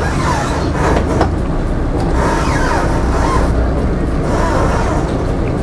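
Sailboat's inboard engine running at low speed while the yacht manoeuvres to a berth, a steady low rumble.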